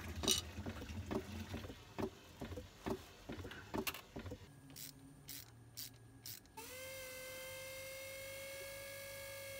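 Scattered clicks and knocks of hands and tools working on metal engine fittings. About two-thirds of the way through, these give way to a steady, even-pitched whine from a small motor, which rises slightly as it starts.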